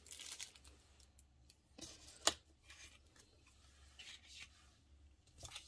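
Faint rustling and light clicks of paper cutouts, a metal cutting die and plastic packaging being picked up and moved aside on a table, with one sharper click about two seconds in.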